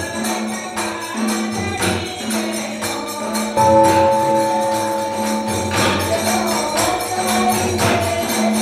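Hindu devotional music: jingling hand percussion keeps a fast, steady beat over long held notes and a moving bass line.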